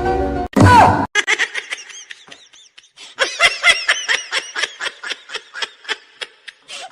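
A sound effect slides down in pitch in the first second. Then a person laughs in quick, high-pitched bursts, several a second, through the rest.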